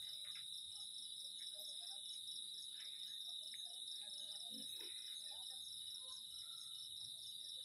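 Night-time chorus of crickets: several steady high-pitched trills layered together, one of them rapidly pulsing.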